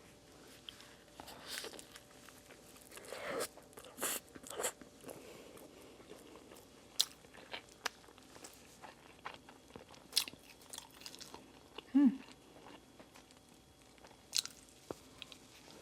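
Close-miked chewing and mouth sounds of a person eating a cheeseburger, with scattered short wet clicks and smacks. A brief pitched sound about 12 seconds in, a short hum.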